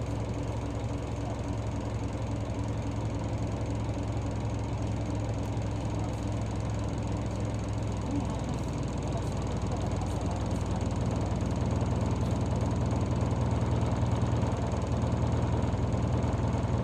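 Route bus's diesel engine idling with a steady low rumble. It gets somewhat louder about eleven seconds in.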